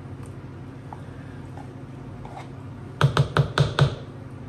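A quick run of about five sharp knocks about three seconds in: a small spatula tapped against the plastic sour cream tub to shake the sour cream off.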